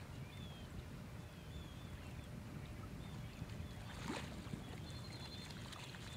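A brief splash of a striped bass in shallow salt water about four seconds in, as it is held at the surface and released, over a steady low rumble.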